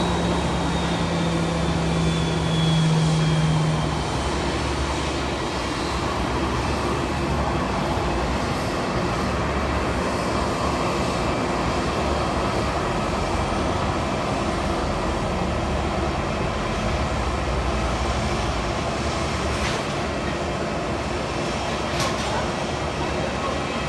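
Jet airliner's engines running: a steady, rumbling roar, with a high whine that falls slowly and a low hum that stops about four seconds in.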